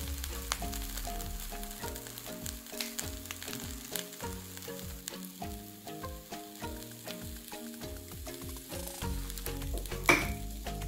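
Beef-filled flour tortillas frying in oil in a nonstick pan, with a steady sizzle and scattered crackles. A gentle melody plays over it, and a single sharp clack sounds near the end.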